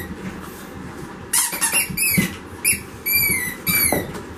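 Squeaky dog toys squeaking several times in short, high-pitched squeals that slide down slightly in pitch, as French Bulldog puppies bite and chew them.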